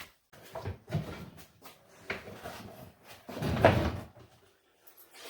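Knocks and clunks of tools and wooden cart parts being handled at a workbench, with one heavier, longer bump about three and a half seconds in.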